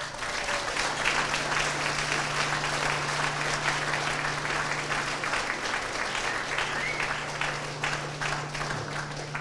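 Audience applauding: clapping from many hands that starts abruptly and keeps up, easing off slightly near the end.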